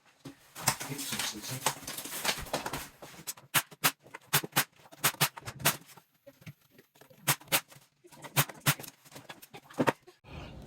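Work on a wooden IKEA base cabinet: a short stretch of scraping, then a run of sharp, irregular clicks and knocks.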